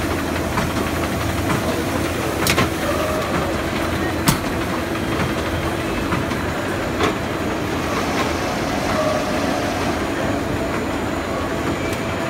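Garbage-bag converting machine running steadily: a continuous mechanical clatter and hum from the rollers and drives, with three sharp clicks in the first seven seconds.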